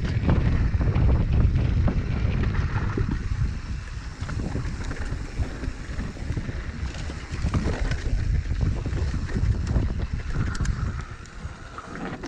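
Mountain bike descending a rooty trail at speed: wind buffeting the microphone over a constant rumble, with many quick knocks and rattles of the bike. It eases off near the end.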